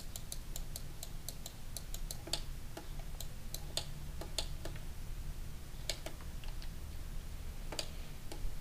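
Light, irregular clicking of computer controls, several clicks a second at first and fewer in the second half, over a low steady hum.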